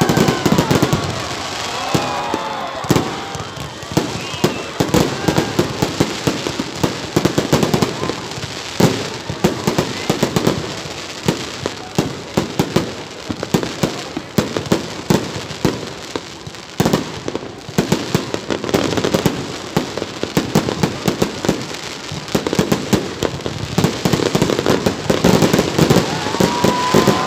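Aerial fireworks display: shells bursting in a dense, rapid barrage of bangs and crackling with no real pause.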